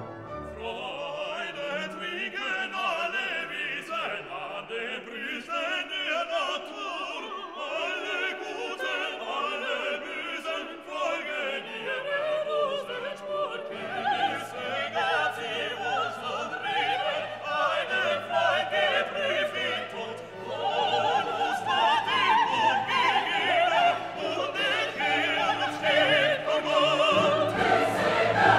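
Classical orchestral music with operatic singing, growing fuller with low notes about halfway through and louder near the end.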